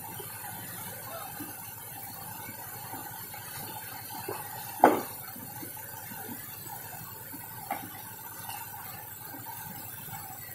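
River water rushing steadily over rocks, with one sharp knock about five seconds in and a fainter knock nearly three seconds later.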